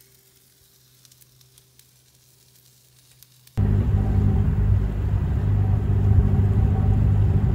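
Faint sizzle and crackle of corn cobs grilling on a portable domed grill. About three and a half seconds in it cuts to a boat's motor running with a much louder steady low rumble over a hiss of wind and water.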